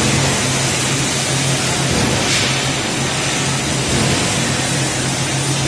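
Metal lathe running steadily while cutting a lead screw thread: a constant low drone from the motor and gearing over an even hiss.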